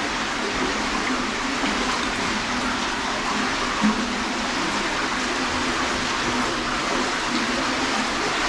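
Fast-flowing brook water rushing through an underground culvert: a steady, loud rush, with one brief knock about four seconds in.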